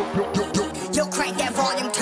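Hip hop outro track with rapped vocals; the deep bass drops out right at the start, leaving the beat and the voice.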